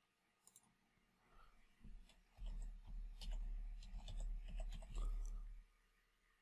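Computer keyboard typing: a quick run of key clicks as an email address is typed, starting about two seconds in and stopping shortly before the end.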